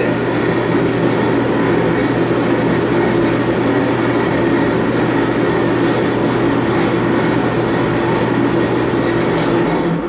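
Admiral AED4675YQ1 electric clothes dryer running: a steady hum from the turning drum and motor under the even rush of the blower. The drum turns smoothly on its newly replaced tub roller bearings, with no squeal or rumble.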